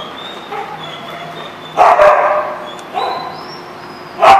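Dogs barking during rough play: one loud bark about two seconds in, a shorter one a second later, and another loud one near the end, over a steady background hum.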